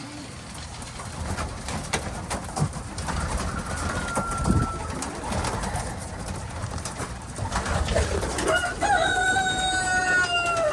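Racing pigeons cooing in a loft, with scattered knocks and clicks. Near the end comes a drawn-out squeak, held for about two seconds and sliding slightly down.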